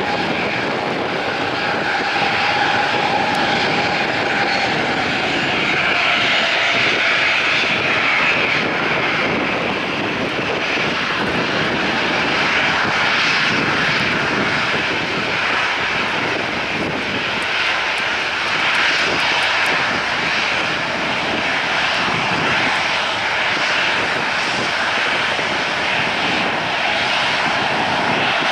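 Boeing 737-800's CFM56-7B turbofan engines running at taxi power, a steady jet whine and rush as the airliner rolls along the taxiway. A faint tone in the whine dips slightly in pitch a few seconds in.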